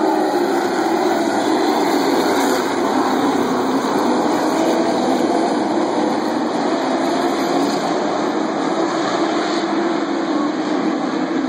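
A field of stock car racing engines running together at speed on a short oval. Several engine notes overlap, each rising and falling as the cars go through the turns and down the straights.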